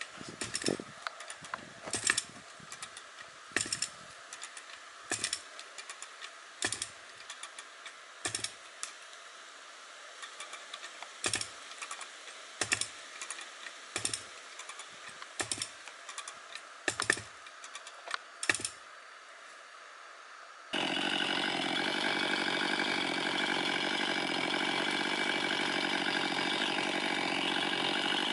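Hand winch being ratcheted to tension a rope tied to a tree: sharp clicks, often in pairs, about every second and a half. About 21 seconds in, this gives way abruptly to a chainsaw idling steadily.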